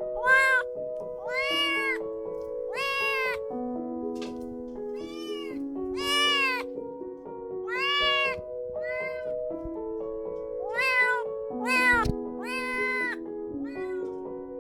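Kitten meowing repeatedly, about eight short meows that rise and fall in pitch, over soft background piano music.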